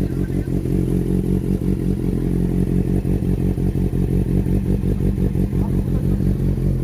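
Motorcycle engine idling steadily through its exhaust, a low, even note with no revving.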